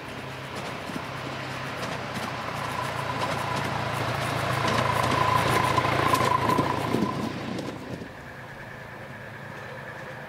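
Miniature railway train, a 5-inch gauge locomotive with a riding car, running on a raised track: the wheels rattle and ring on the rails, growing louder as it comes close and passes. The sound drops suddenly about eight seconds in.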